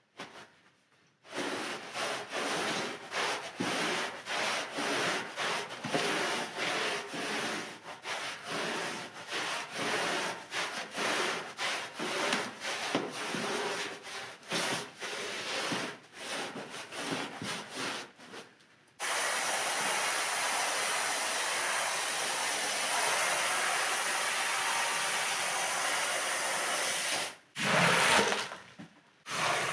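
Stiff-bristled brush scrubbing a wet, soapy rug in quick back-and-forth strokes, about two a second. About two-thirds of the way through, the strokes give way to a steady hiss for some eight seconds, and a few louder scraping strokes follow near the end.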